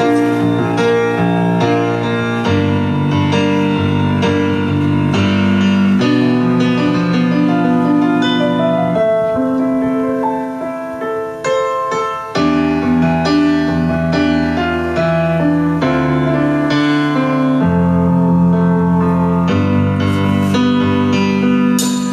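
Keyboard music: held chords with a melody line over them, playing an instrumental passage of a song.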